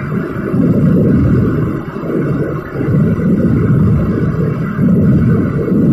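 A fireworks barrage of firecrackers going off in rapid, unbroken succession, merging into one loud, continuous din. The din dips briefly about two seconds in.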